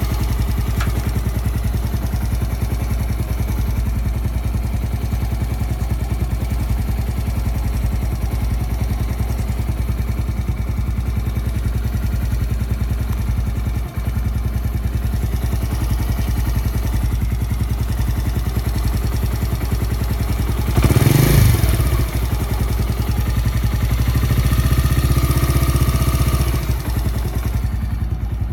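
Haojue HJ125 motorcycle's air-cooled single-cylinder engine idling steadily, heard up close. About three-quarters of the way through it is revved briefly once. A few seconds later it is held a little above idle for a couple of seconds, then settles back.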